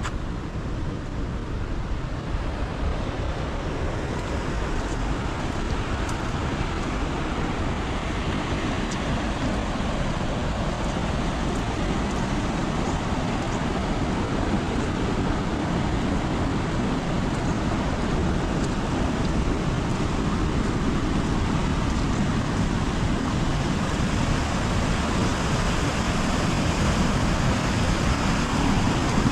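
Heavy rain falling steadily: a dense wash of noise with faint scattered drop ticks, growing slowly louder.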